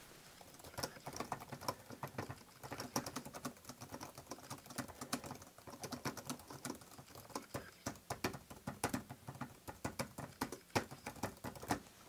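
Fast typing on a TECKNET X315 wireless keyboard with low-profile chiclet keys: a run of light key clicks, several a second. It starts about a second in and stops just before the end. Sold as whisper quiet, it is not loud but still has a certain amount of volume to it.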